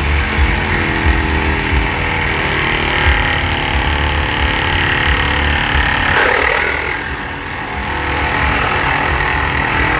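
Cordless reciprocating saw running and cutting, a steady buzzing motor with a fast chattering stroke that eases off briefly around two-thirds of the way through.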